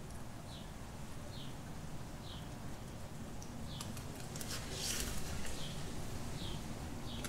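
Guinea pigs chewing and tugging at an avocado leaf and fresh grass, with a burst of crisp crunching and leaf rustling around the middle. A faint high chirp repeats about once a second throughout.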